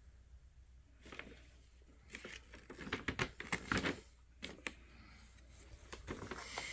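Faint rustling and scattered light clicks of a toy's packaging being handled and pulled at, mostly in the middle stretch.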